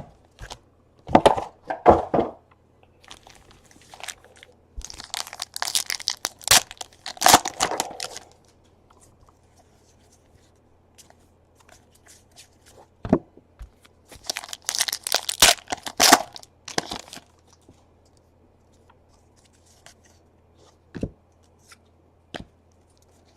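Plastic and foil wrapping of a 2017 Donruss baseball card box and its packs being torn and crinkled open. It comes in two main bursts, with scattered clicks and rustles between them.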